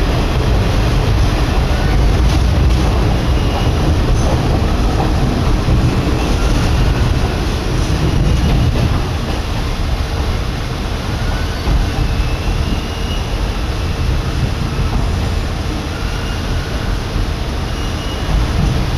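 Kominato Railway diesel railcar running along the line, heard from inside the passenger cabin: a steady, loud rumble of engine and wheels on the rails.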